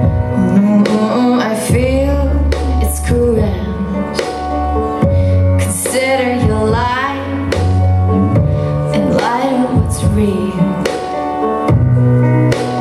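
Loud dance music track with a singing voice over sustained bass notes, broken by sharp hits and abrupt changes.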